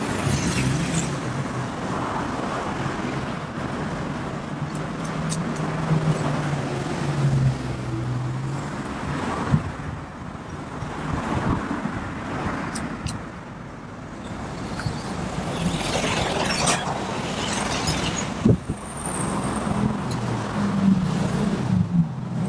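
City road traffic: cars and other vehicles running and passing, with a steady low engine hum that swells twice, about a quarter of the way in and again near the end, and a couple of short knocks.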